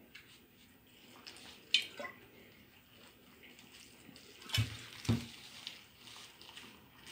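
Hands rubbing and mixing crumbly flour-and-oil dough in a glass bowl: soft, scattered rustling and clicking. About four and a half and five seconds in come two louder knocks.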